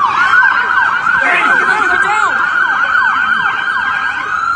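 Emergency-vehicle sirens: one on a fast yelp, sweeping up and down about five times a second, over a second siren holding a steadier tone. Loud and close.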